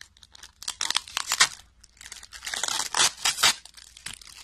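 Plastic deli cup lid, wrapped in clear plastic film, being pried and pulled off by hand: crinkling and crackling plastic in two spells, about a second in and again around three seconds in.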